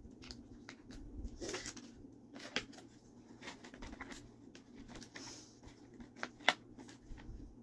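A fork tossing salad in a clear plastic clamshell container, after a dressing packet is squeezed out: scattered light clicks, taps and crinkles, the sharpest a little after six seconds.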